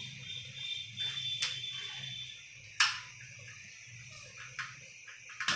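Portable camping gas stove being lit: a sharp click of its igniter knob about three seconds in, with smaller clicks before and near the end, over a faint steady hiss.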